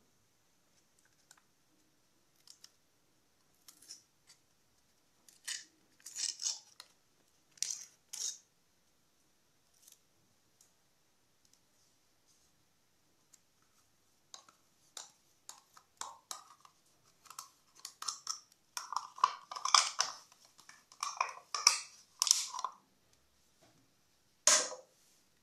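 Spoon scraping yogurt out of a plastic yogurt cup onto fruit in a stainless steel bowl. Short scrapes and taps come sparsely at first and thickly in the second half, with one louder knock near the end.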